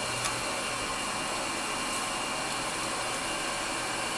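ENCO 9x20 belt-driven bench lathe running under power: a steady whir of motor, belt drive and gearing with a faint high whine. A single light click about a quarter second in.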